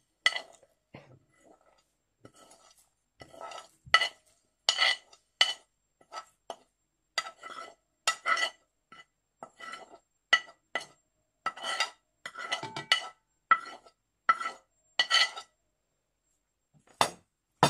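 Metal spoon clinking and scraping against a plate and a glass bowl as spices are pushed off the plate into the bowl: an irregular run of short clinks, each ringing briefly, about one or two a second, with a louder clink near the end.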